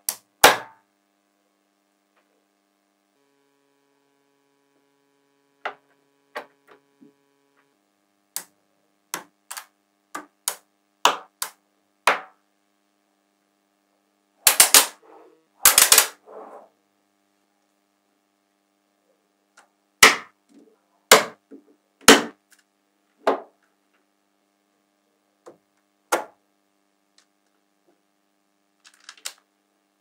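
Small magnetic balls snapping together with sharp, irregularly spaced clicks as rows of balls are joined and set down, with a quick rattling cluster of clicks about halfway through.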